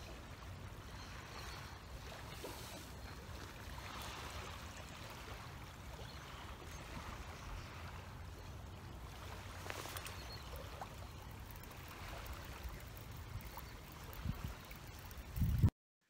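Wind buffeting the microphone as a steady low rumble, with small waves lapping at the river bank and a faint hiss. It cuts off suddenly near the end.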